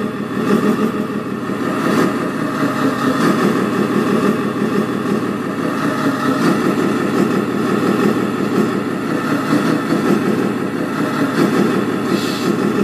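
Sound module of a 1/14-scale RC Scania R620 truck playing a simulated diesel engine running steadily, with a brief hiss near the end.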